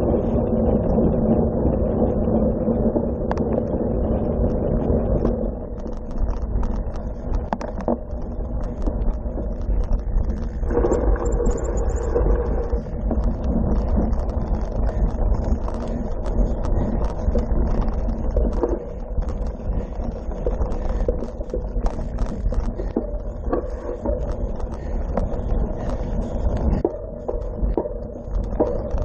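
Cyclocross bike ridden hard over rough ground: wind on the microphone and tyre noise rolling over gravel and grass, with frequent clicks and rattles from the bike. A steadier hum early on eases about five seconds in.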